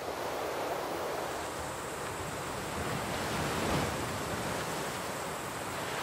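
Steady wash of surf on a sandy beach.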